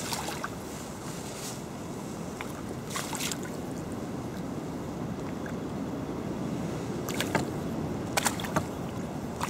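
A mirror carp splashing in a landing net at the water's surface: several brief splashes, one at the start, one around three seconds in and two near the end. They sit over a steady low rumble of wind on the microphone.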